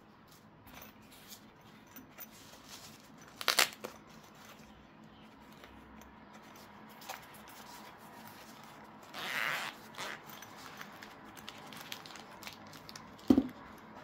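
Unboxing handling noises: small taps and clicks as a fabric knife case and plastic packaging are picked up and set down on a desk. There is a sharp click about three and a half seconds in, a rustle lasting about a second near the middle, and a knock near the end.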